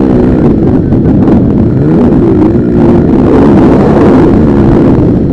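Motocross motorcycle engines revving hard, their pitch rising and falling repeatedly as the bikes accelerate and shift around the track.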